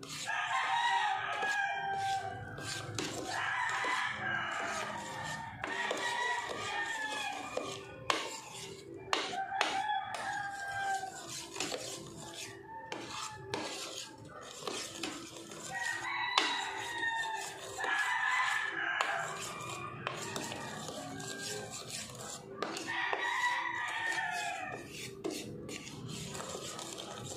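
Chickens calling again and again, each call a second or two long and falling in pitch. Under them, light clinks and scrapes of a metal spoon stirring batter in a plastic bowl.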